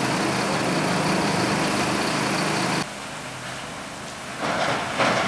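Fire truck engine running steadily close by for the first half. After a cut the engine gives way to a quieter steady hiss, with louder noisy bursts near the end.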